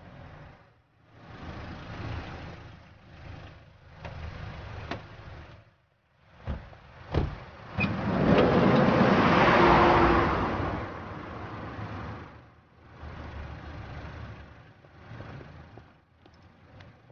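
Road traffic: cars passing one after another, each a swell of tyre and engine noise that rises and fades, the loudest passing close about nine to ten seconds in. A couple of sharp knocks come just before it.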